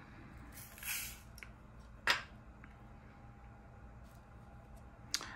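Small clear plastic diamond-painting drill containers handled on a desk: a soft rustle about a second in, then one sharp plastic click about two seconds in, with a few faint ticks near the end.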